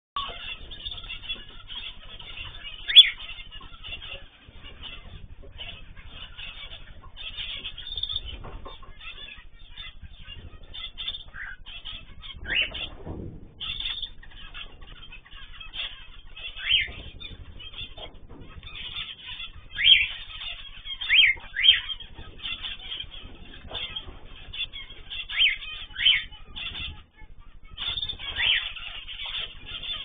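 Aviary cage birds, among them cockatiels, chirping continuously in a busy chatter, with repeated short, sharp calls that drop in pitch rising above it, the loudest about three seconds in.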